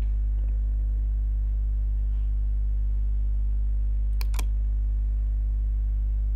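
Loud, steady low electrical hum with a few evenly spaced higher tones above it, of the kind a ground loop or interference puts into a recording. About four seconds in, a computer mouse gives a quick double click.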